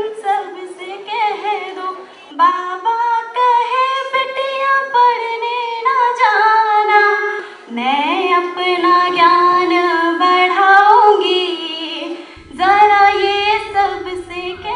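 A woman's voice singing a song in long held and gliding notes. Near the end a low hum comes in under the voice.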